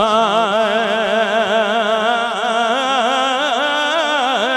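A man singing a Punjabi devotional song for Imam Hussain into a microphone, holding one long, wavering, ornamented note without words.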